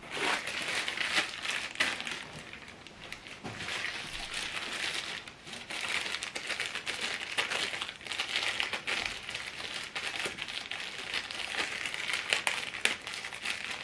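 Packaging being handled and crinkled: a continuous rustle of irregular crackles.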